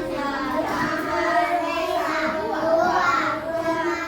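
Young children singing a song together, several voices in unison holding sung notes.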